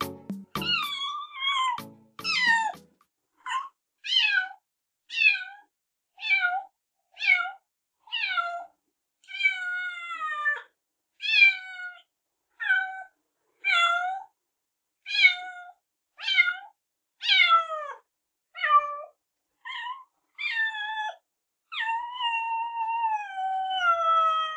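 Kitten meows: high-pitched calls that fall in pitch, about one a second, the last one long and drawn out.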